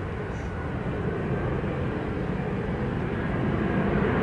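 Jet airliner's twin engines on final approach to land, a steady rumble that grows louder as the aircraft nears the runway.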